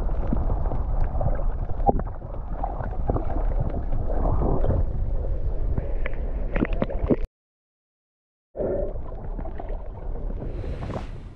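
Muffled rushing and gurgling of water heard through a camera held underwater while snorkeling, with scattered small clicks. It cuts out completely for just over a second partway through, then returns.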